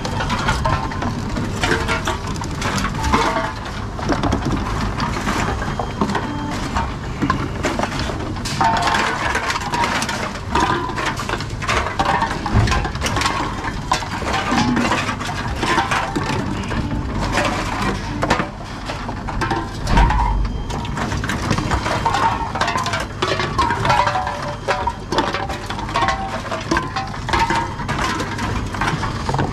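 Aluminium drink cans and plastic bottles clinking and knocking as they are picked out of a wire shopping trolley and fed into a reverse vending machine's chute, with the machine's mechanism taking them in. It is a continuous run of clinks and knocks with no pause.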